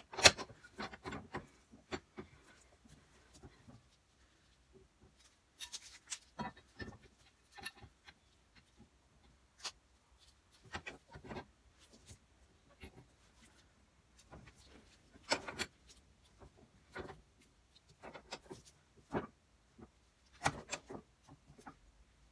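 Scattered metal clicks, light knocks and scraping of tools and parts as new kingpin bushes are fitted into a stub axle clamped in a bench vise.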